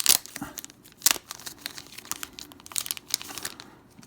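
Thin plastic trading-card team bag crinkling and rustling in several short bursts as it is handled and opened, the loudest right at the start and about a second in.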